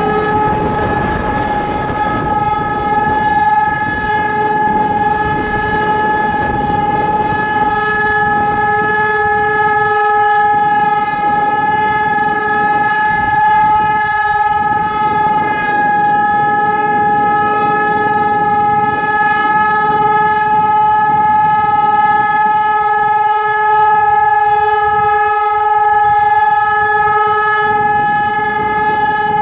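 ECN 1200 electronic high-performance siren sounding one loud, steady tone that holds the same pitch throughout. This is the continuous-tone all-clear signal (Entwarnung) of a siren test.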